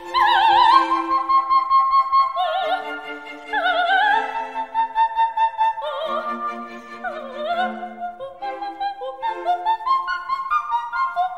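Operatic soprano singing high sustained notes with wide vibrato over orchestral accompaniment. In the last few seconds the music breaks into a quick run of short, stepping notes.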